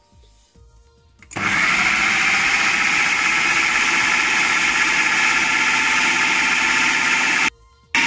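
Food processor motor starting up about a second in and running steadily at full speed, blending raw cod, egg and seasonings into a smooth fish paste. It cuts out abruptly for a moment near the end and starts again.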